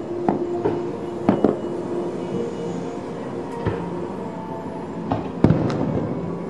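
Fireworks shells bursting in the distance: a series of sharp booms at irregular intervals, some in quick pairs, the loudest about five and a half seconds in.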